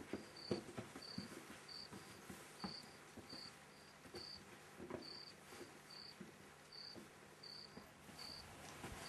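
A cricket chirping at night: short, high chirps repeating about every two-thirds of a second, with faint footsteps on a path underneath.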